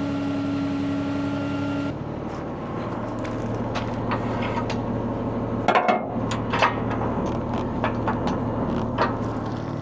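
Roll-off truck's engine running its hydraulic hoist to pull a loaded low-boy dumpster onto the truck. A steady whine stops suddenly about two seconds in, leaving a lower engine hum, with sharp metal clanks and clicks through the second half.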